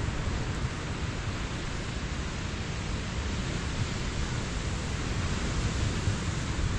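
Steady outdoor noise of wind buffeting the microphone, mixed with the wash of surf breaking on the shore: an even hiss over a low, unsteady rumble.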